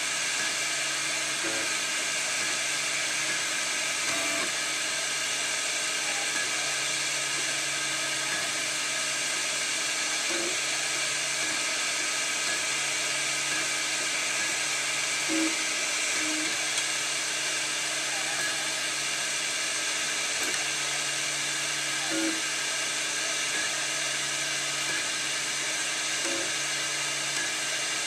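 Desktop FDM 3D printer running mid-print, a steady mechanical whine from its motors and cooling fan, with a low hum that cuts in and out and short chirps every few seconds as the print head moves.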